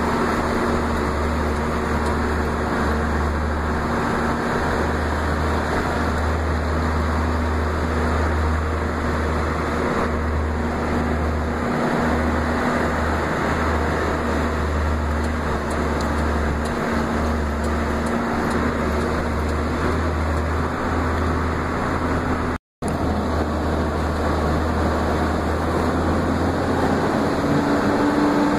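Steady engine and road noise heard from inside a moving vehicle, a low drone under a constant hum whose pitch rises near the end as the engine speeds up. The sound cuts out for an instant about two-thirds of the way through.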